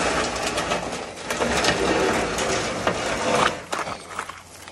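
Dense crackling rustle and scraping, full of fine rapid clicks, as a person climbs aboard a small aluminium mini pontoon boat resting in grassy shallows. It eases off after about three and a half seconds.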